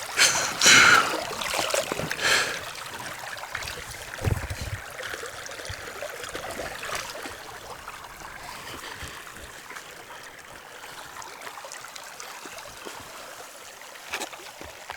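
Shallow stream water trickling steadily. There are a few louder noisy sounds in the first couple of seconds and a low thump about four seconds in.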